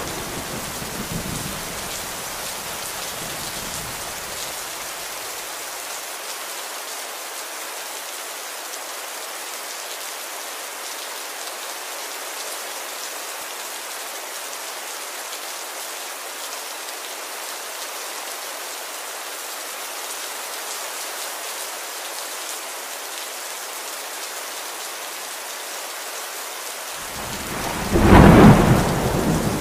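Steady rain hissing, with thunder. A rumble fades away over the first few seconds, and another loud roll of thunder swells near the end.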